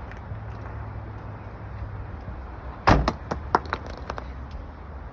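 A thrown rock strikes the padded hail-protection cover on a car's side about three seconds in with one sharp thud. A quick patter of smaller knocks follows as the rock bounces and drops to the ground.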